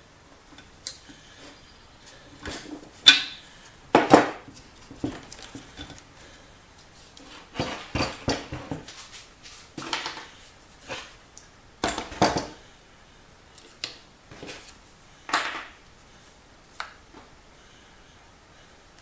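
Metal hand tools and small engine parts clinking and knocking as they are handled on a workbench: irregular single clatters and short clusters of clinks with quiet gaps between.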